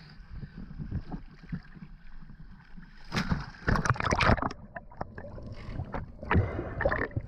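Water sloshing at the sea surface, then, about three seconds in, a dense rush of splashing and bubbling as the freediver goes under. A second shorter burst of bubbling comes near the end.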